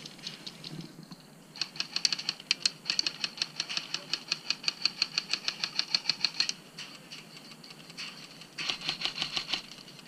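Airsoft rifles firing rapid full-auto bursts: a long run of about five seconds, then a shorter burst near the end.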